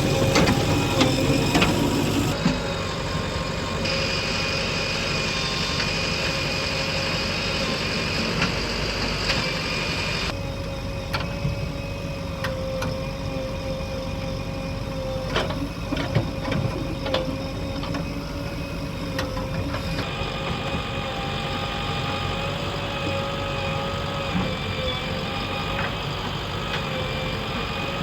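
Diesel engines of construction machinery running steadily, with scattered knocks and clanks. The sound changes abruptly several times, as at cuts between clips.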